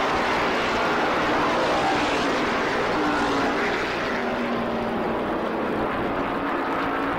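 NASCAR Modified race cars' V8 engines running at full speed on the track, a loud steady drone with several engine notes shifting in pitch as cars go by.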